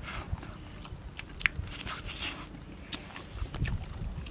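A person chewing and biting into grilled fish, eaten by hand, with scattered small clicks of mouth sounds and picking at the fish.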